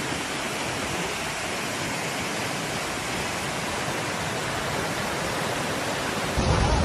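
Muddy floodwater rushing in a fast, steady torrent, a dense even roar of water that turns suddenly louder and deeper near the end.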